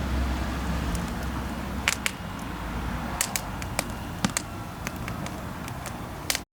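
Wood fire crackling in a fire pit, with scattered sharp pops over a steady low rumble. It cuts off abruptly near the end.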